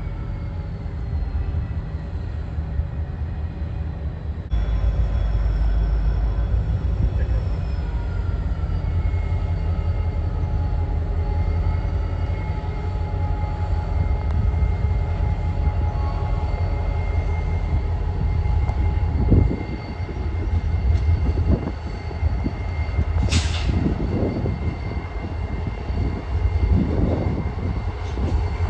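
Freight train moving slowly through a yard during switching: a diesel locomotive's low, steady rumble with several steady high whining tones over it. From about two-thirds of the way in come a series of irregular sharp clanks and knocks from the cars.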